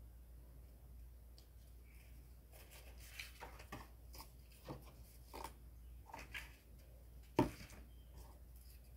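Pieces of a cardboard model handled on a wooden table: a run of light rustles and taps, with one sharper knock about seven seconds in, over a faint steady low hum.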